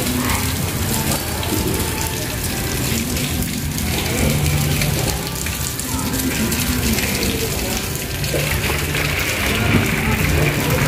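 Rain pouring steadily, with a low hum underneath.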